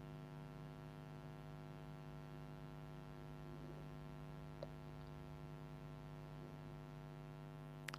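Faint, steady electrical hum, made of a stack of even tones, with one tiny tick about halfway through.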